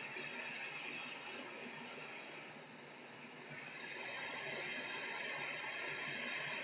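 Hot air rework station blowing a steady hiss of hot air onto a laptop motherboard to desolder a small capacitor. The hiss dips briefly about two and a half seconds in.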